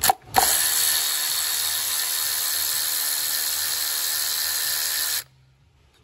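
Cordless electric ratchet undoing a coil pack retaining bolt: a brief blip at the start, then a steady whir of about five seconds that cuts off suddenly.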